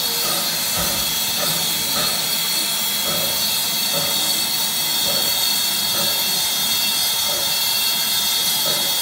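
Steam locomotive giving off a loud, steady hiss of steam.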